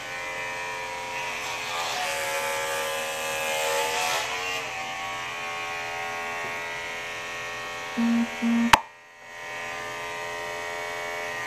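Electric hair clippers buzzing steadily, their pitch wavering as they cut through hair. About nine seconds in there is a sharp click, and the buzz drops out briefly before coming back.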